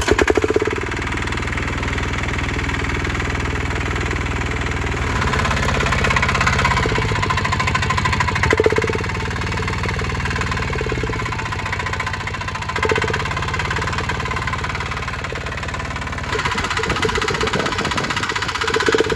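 Single-cylinder diesel engine of a walk-behind tractor catching and running, its exhaust blowing into a beer can wired over the muffler outlet to change the exhaust note. The engine is revved up and back down a few times.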